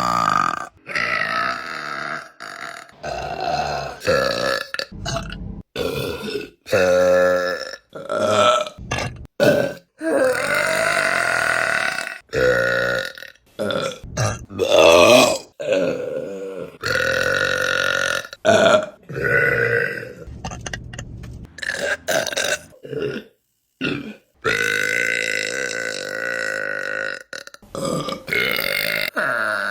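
Women's burps in quick succession, about twenty of them, some short and some long and drawn out, joined by abrupt cuts from one to the next.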